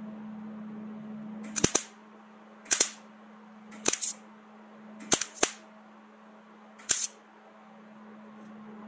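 Five short, sharp snaps about a second apart, each with a brief hiss, over a steady low hum.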